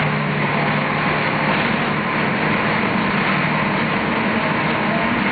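City bus running at a steady engine speed, heard from on board: a constant low engine drone over an even rumble of road and cabin noise.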